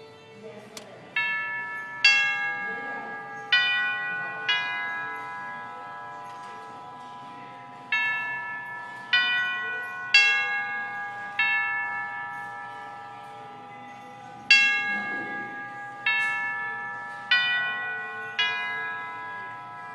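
1929 Herschede-made Revere "Roxbury" grandfather clock playing its tubular bell chime. The tubes are struck one at a time in phrases of four notes of differing pitch, with a pause after each phrase, and each note rings on into the next.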